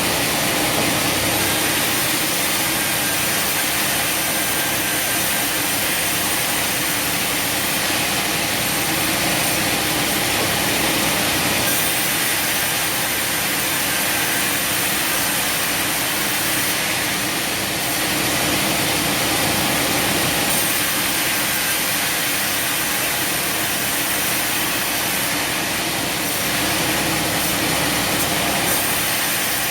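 Sawmill machinery running steadily, a constant loud engine-like noise with a hiss that reaches high up.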